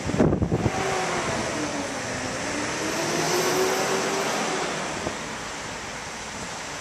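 A motor vehicle passing on the street: engine and tyre noise swell to a peak midway and fade away, the engine note bending slowly in pitch. There is a short rumble of wind on the microphone at the start.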